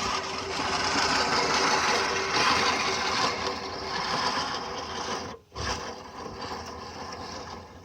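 Manual push reel mower's spinning reel blades whirring and clattering as they cut grass. There is a brief break about five and a half seconds in.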